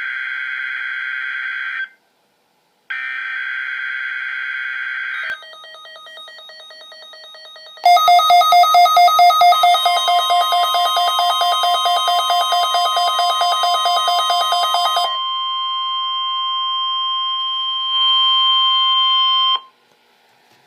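NOAA Weather Radio required weekly test: two bursts of SAME digital header data tones, then a Midland WR-300 weather radio receiver's alert siren, a loud rapid pulsing beep, from about eight seconds in. A steady high tone sounds under the siren and carries on alone for a few seconds after it stops. The owner notes the siren was set to high but went off as if set to low.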